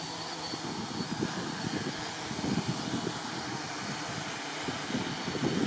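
Multirotor drone's propellers whirring steadily as it descends under automatic landing, with gusty wind buffeting the microphone.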